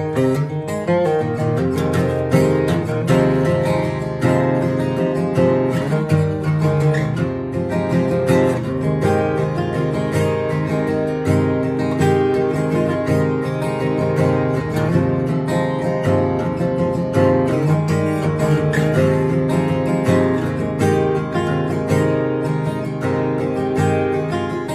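Solo steel-string acoustic guitar playing an instrumental, notes picked in a quick, even rhythm over ringing chords.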